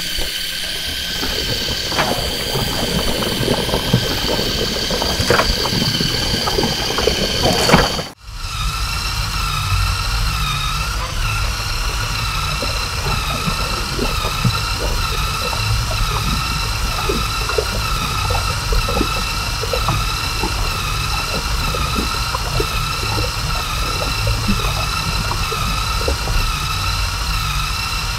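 Lego Technic walker robot's electric motor whining steadily through its gear train, with irregular clicks of the plastic legs and linkages as it walks. After a short break about eight seconds in, the whine continues at a lower pitch with a low rumble under it.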